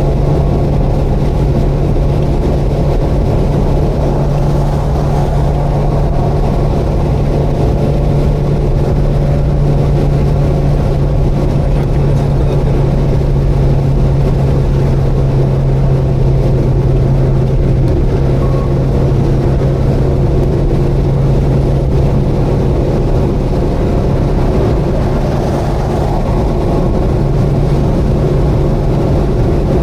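Subaru Vivio's 660 cc four-cylinder engine and road noise while cruising on the expressway, a steady low drone.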